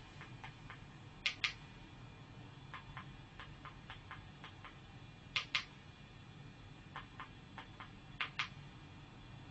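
Remote control buttons clicking as a menu is navigated: a string of light ticks, with three louder double clicks spaced a few seconds apart.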